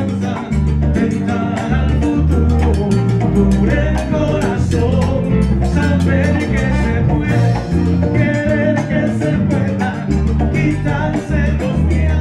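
Live salsa band playing: a bass line of short, separate low notes under piano and guitar lines, with steady percussion hits.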